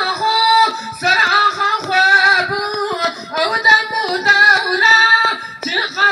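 A man singing a Kurdish song into a microphone, amplified through a loudspeaker, in long held, wavering phrases with short breaks between them.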